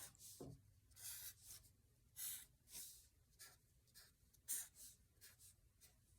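Faint scratching of a drawing tool on paper, a series of short, irregular strokes as stockings are drawn in.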